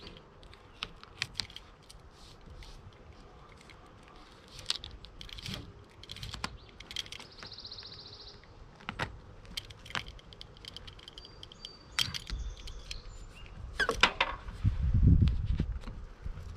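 ZIP System flashing tape being handled and pressed onto ZIP wall sheathing by hand and with a hand roller: scattered crinkles, clicks and rustles of the stiff tape and its backing. There is a louder stretch of handling noise about 14 seconds in.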